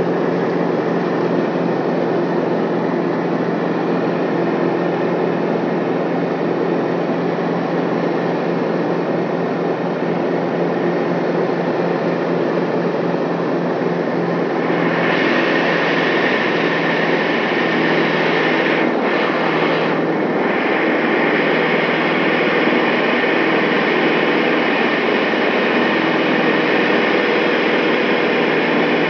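Steady engine drone inside the cabin of a small private jet climbing out after takeoff. About halfway through it grows brighter and slightly louder.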